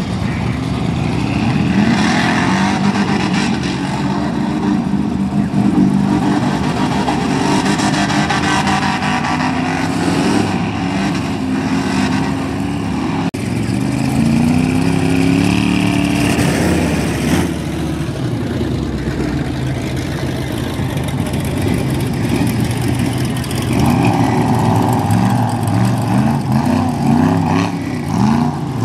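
Engine of a mud-bogging vehicle revving hard, its pitch climbing and dropping again and again.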